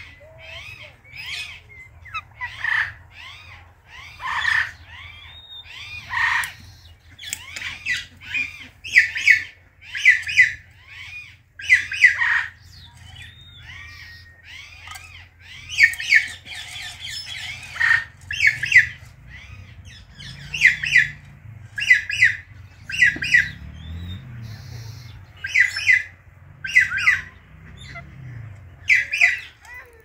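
Parakeets squawking, Indian ringnecks and an Alexandrine: many short harsh calls, often in quick runs of two or three.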